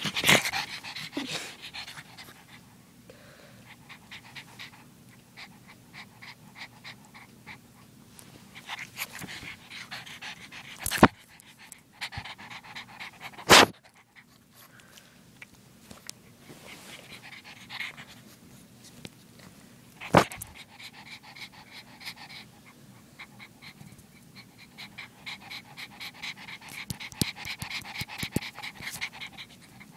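Pug puppy panting quickly in bouts, right at the microphone. A few sharp knocks cut in, one at the start and others about eleven, thirteen and twenty seconds in.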